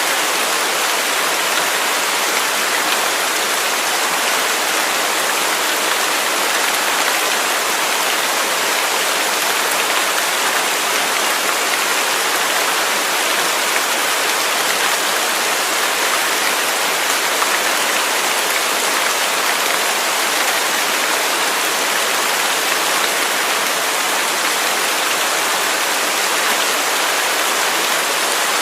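Waterfall: a steady rush of falling water, an even hiss mostly in the upper range with little deep rumble, unchanging throughout.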